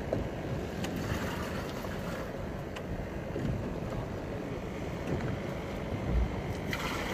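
Wind buffeting the microphone over water lapping against a small fishing boat at sea, with no engine running. A few faint clicks and one low thump about six seconds in.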